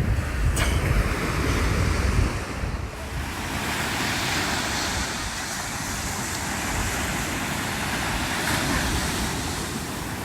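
Ocean surf washing on a beach as a steady hiss, with wind buffeting the microphone for the first few seconds.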